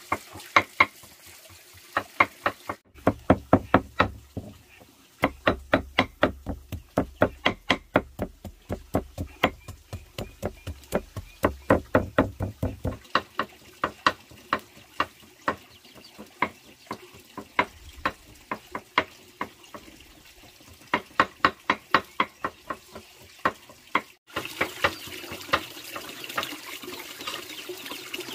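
A knife chopping on a wooden cutting board in quick runs of sharp knocks, about four to five a second, with short pauses between runs. About 24 seconds in it gives way to water running steadily from a bamboo pipe.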